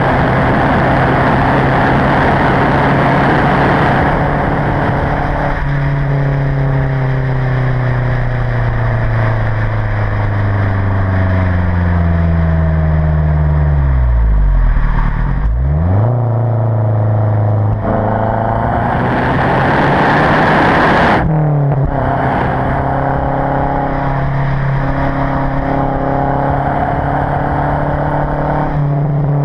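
Mazda 3 MPS's 2.3-litre turbocharged four-cylinder through its stock exhaust, recorded right at the tailpipe on the move. It opens with a windrush sound of heavy exhaust flow under throttle. The drone then falls steadily in pitch as the car slows, rises briefly, and rushes again under acceleration. A short break for a gear change comes near 21 seconds, and the car then settles into a steady cruising drone.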